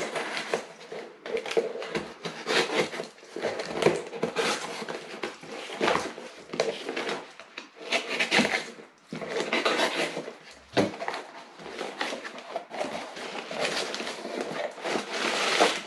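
Cardboard box being unpacked by hand: its printed sleeve slid off and its flaps pulled open, with continuous irregular rustling and scraping of cardboard and a few sharper knocks.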